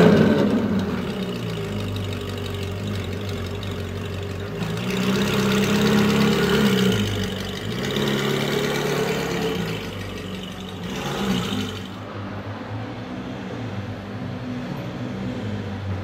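Ferrari 458 Speciale's 4.5-litre V8 through an aftermarket Fi Exhaust, revs falling from its start-up flare and settling into idle. About five seconds in it revs up slowly and drops back, then revs a little again and gives a short blip near the end before settling to idle.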